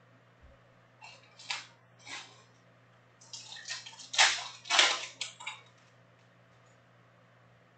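Foil wrapper of a Topps Chrome trading-card pack crinkling and tearing as it is ripped open by hand: a few short rustles, then a denser burst of crinkling from about three to five and a half seconds in.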